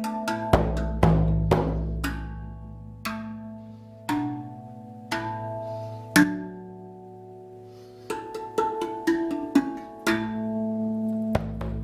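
RAV Vast 2 steel tongue drum in B Celtic (double ding), struck by hand: unhurried single notes that each ring on and overlap. A strong note about six seconds in is left to fade, then comes a quicker run of notes.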